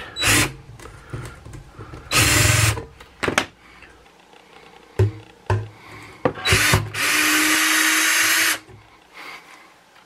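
Power drill-driver running in short bursts as it backs small drywall screws out of a plastic sump pit cover, with small clicks between runs; the longest run, near the end, lasts about a second and a half.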